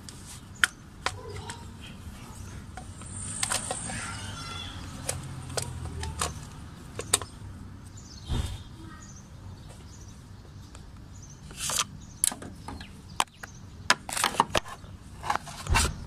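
Irregular clicks and knocks of engine parts being handled by hand around the distributor and ignition coil, with a denser run of knocks near the end. The engine is not running.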